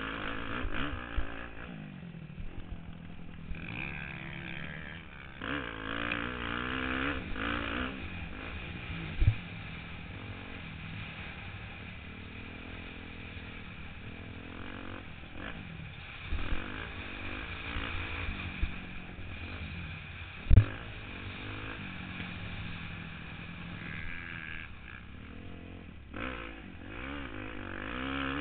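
Motocross dirt bike engine revving up and falling off again and again as the rider accelerates and shifts, heard from a helmet-mounted camera. Two sharp thumps stand out, about nine seconds in and about twenty seconds in.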